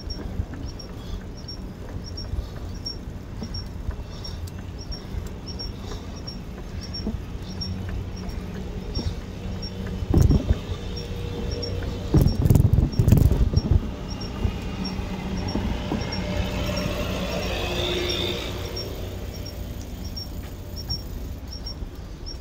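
Riding noise of a bicycle on a paved path: a steady low rumble of wind and tyres, with a light tick repeating about twice a second. Knocks about ten seconds in and again around thirteen seconds as the wheels cross onto a concrete section, and a brief hiss a few seconds later.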